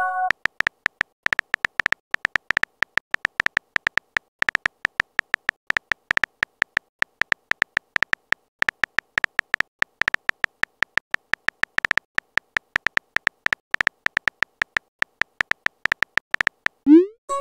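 Simulated phone-keyboard typing clicks from a texting-story animation, quick irregular taps several a second as a message is typed out. Near the end a short rising swoop and chime sound as the message is sent.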